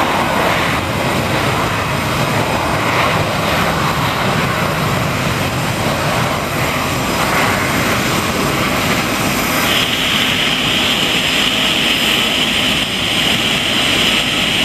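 Engines of a Boliviana de Aviación twin-jet airliner running at high power on the runway: a steady, loud jet rush, with a high whine added about ten seconds in.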